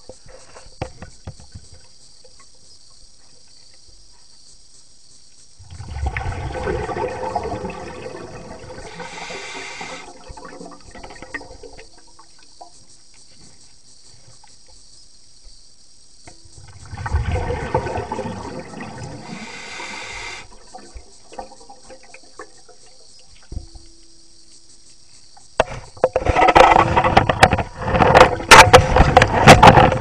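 Water bubbling and gurgling as heard underwater, in two bursts several seconds long about ten seconds apart, over a faint steady hiss. Near the end comes a loud, irregular run of knocks and rushing water.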